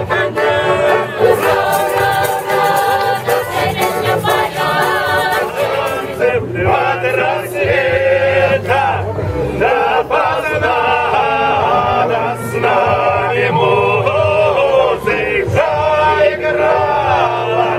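Cossack folk ensemble singing a folk song in chorus, men's and women's voices together, with button accordion accompaniment. Quick percussive beats run through the first six seconds or so, then stop.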